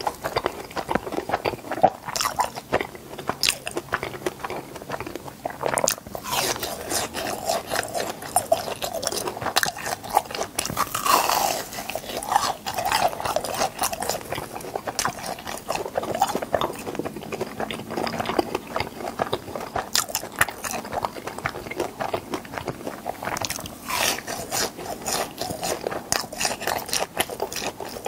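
Close-miked chewing of fried cheese balls: the crisp breaded crust crunching and crackling between the teeth with wet mouth sounds, a steady run of small clicks, brightest in a burst of crunching about eleven seconds in.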